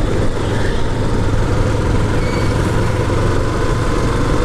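Motorcycle engine running steadily as the bike rides along at an even speed, a constant low hum with wind and road noise on the microphone.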